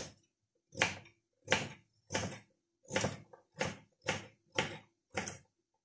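Kitchen knife chopping a carrot into thick chunks on a wooden cutting board: about nine sharp knocks of the blade on the board, in a steady rhythm of roughly one and a half cuts a second.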